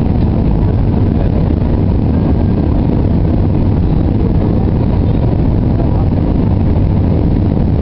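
Steady roar of an airliner's jet engines and airflow heard from inside the passenger cabin during the approach descent, heaviest in the low end and even in level throughout.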